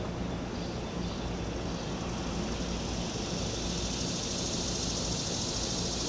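Steady outdoor background noise: a low rumble with a hiss high up that grows louder about halfway through.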